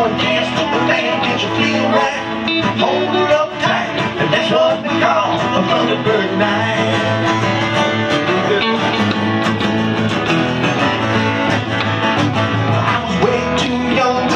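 Instrumental break in a live country song: a strummed acoustic guitar and an archtop electric guitar playing together.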